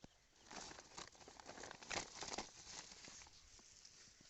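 Crinkling, rustling handling noise for about two and a half seconds, loudest about two seconds in.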